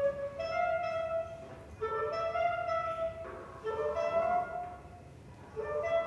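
Clarinet playing short melodic phrases, three in quick succession, then a pause of about a second before another begins near the end.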